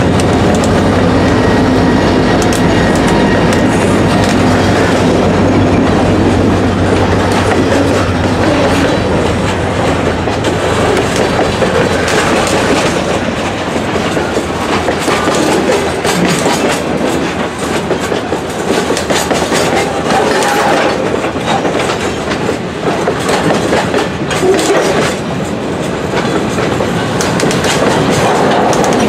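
EMD SD40-3 diesel locomotive rolling past slowly, its engine's steady drone fading over the first several seconds. Freight cars follow with a continuous clickety-clack of wheels over the rail joints.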